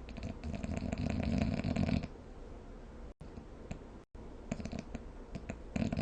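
Snoring: one long, fluttering snore lasting about two seconds, then quieter breathing, and a second, shorter snore starting near the end.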